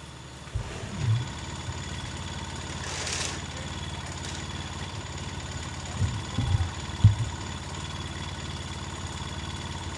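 Pickup truck engine running steadily at idle, heard from the truck bed, starting suddenly about half a second in. There are a few low thumps around a second in and again near the seven-second mark.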